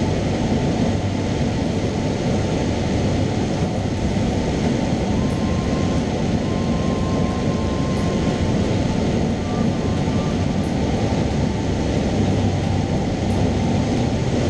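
Cessna 172's piston engine and propeller droning steadily, heard inside the cabin in flight with rushing air noise.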